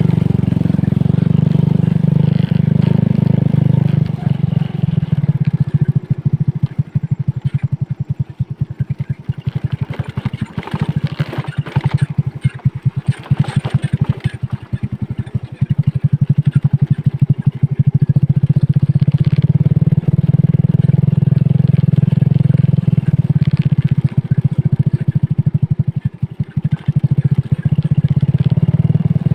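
Motorcycle engine running as it is ridden along. The low engine sound holds steady, then turns choppy and uneven between about six and fifteen seconds in, and again briefly near the end.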